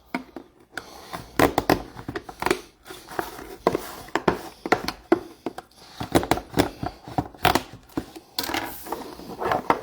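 Trading card packs being opened and handled: irregular crinkling and tearing of pack wrappers with small clicks and rustles of cards.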